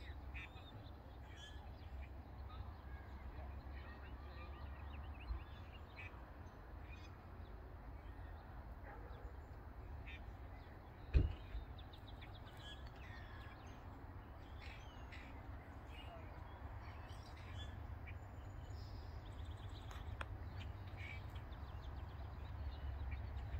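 Birds calling, short calls scattered throughout, over a steady low rumble that grows a little louder near the end, with a single sharp knock about halfway.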